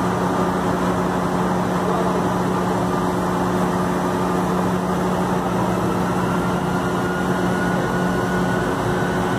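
Fire truck's diesel engine idling steadily: a constant hum with no change in speed.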